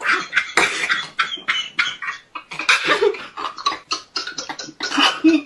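Stifled laughter over a phone call: an irregular run of short, breathy puffs with a few brief voiced squeaks, but no words.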